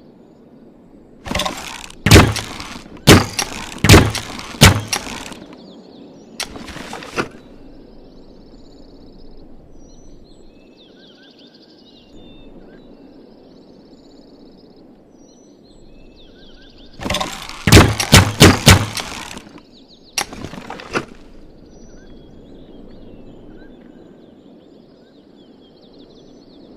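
Bamboo repeating crossbow being worked and shot: sharp wooden cracks and clacks in two quick volleys of several strokes each, the first a couple of seconds in and the second about two-thirds of the way through. Faint birds or insects chirp between the volleys.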